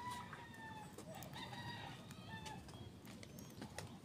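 A rooster crowing faintly, twice: one crow trails off in the first moments and a second long crow comes about a second and a half in.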